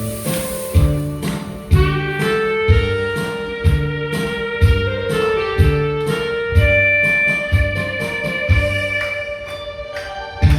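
Instrumental backing track for a Korean trot song, with a steady drum and bass beat under long held melody notes.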